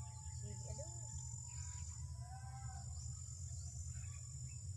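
Steady high-pitched insect chirring, with a few faint bird calls over a low steady rumble.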